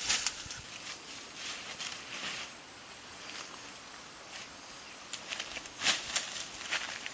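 Footsteps through tall grass and undergrowth, with stems and leaves rustling and crackling in short irregular bursts. The loudest come just after the start and about six seconds in, over a steady faint high whine.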